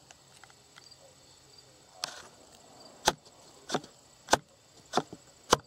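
Five sharp clicks about half a second apart, after a brief rustle, over a faint steady high-pitched insect trill.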